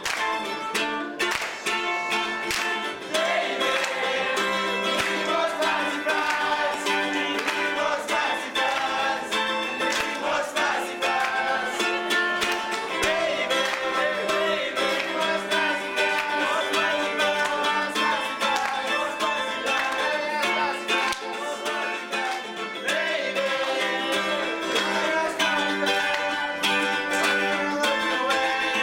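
Live song: a strummed guitar with male voices singing over it, and hand claps in the first few seconds.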